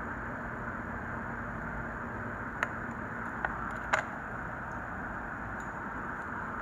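Steady rushing noise with a low hum, like a small blower or fan running without change, and three short sharp clicks near the middle.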